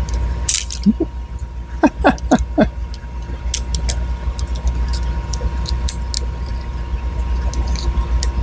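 Small metal parts of an OTF knife being worked apart by hand: a scrape, a few short squeaks, then scattered light clicks of metal pieces. A steady low hum runs underneath.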